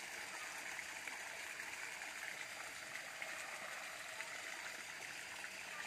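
Water jetting from a pipe into a fish pond, a steady splashing and running of water.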